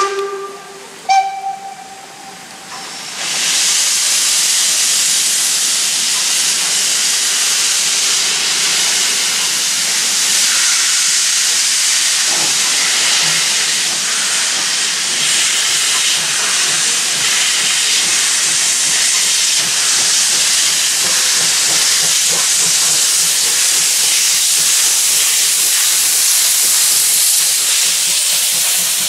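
Steam locomotive sounds two short whistle blasts, then a loud, steady hiss of escaping steam begins about three seconds in as it sets off and draws past, wrapped in steam at track level.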